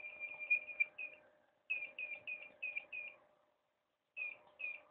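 Profoto D1 studio flash being fired in rapid repeated bursts, each shot giving a short high chirp, about five a second. The run breaks off twice, briefly and then for about a second, where the flash fails to fire: the missed shots and recycling delay that the technician puts down to an unstable flash engine.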